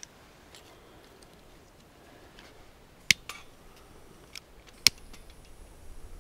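Pieces of wood clicking and knocking against a small metal twig stove (a Bushbox XL) as they are set into it: a few light clicks and two sharp knocks, about three and five seconds in.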